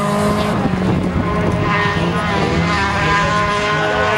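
Several folkrace cars' engines running at high revs on a dirt track, their overlapping notes shifting in pitch as they accelerate and lift through the corners.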